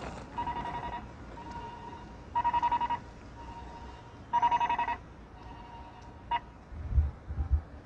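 Electronic beeping from a crosswalk's audible pedestrian signal: short bursts of rapid beeps about every two seconds while the green light counts down its last seconds. A few low thumps near the end.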